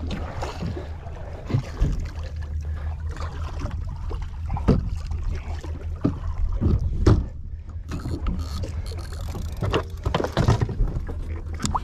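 Steady low hum on board a small fishing boat, with a few sharp knocks scattered through it.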